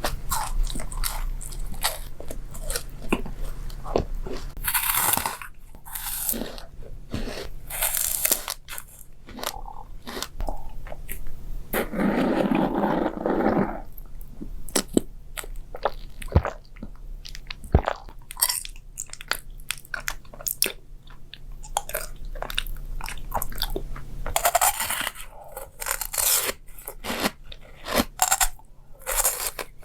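Close-miked eating sounds: crisp bites and crunching with chewing, in irregular sharp crackles, and a denser, longer stretch of sound about twelve seconds in.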